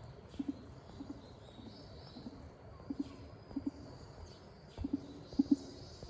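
A bird cooing: short low notes, mostly in pairs, repeating every second or so and growing louder near the end.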